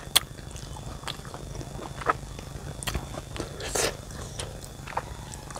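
A person chewing a mouthful of grated young papaya with chili sambal, with sharp wet mouth clicks and smacks about once a second.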